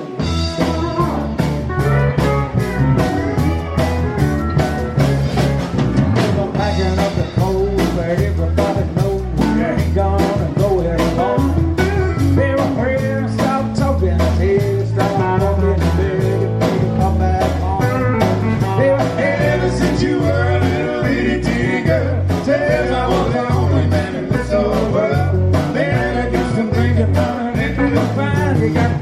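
Live country band playing an up-tempo song with electric guitar, bass and drums on a steady beat.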